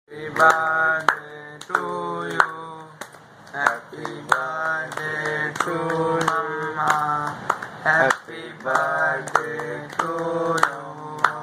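A voice singing a chant-like melody over a steady low drone, without a break, in the manner of a recorded song track.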